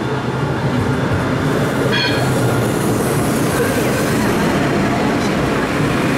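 Alstom Citadis 403 tram passing close by on street track: a steady hum and rolling noise that swells slightly as it draws alongside, with a brief high-pitched tone about two seconds in.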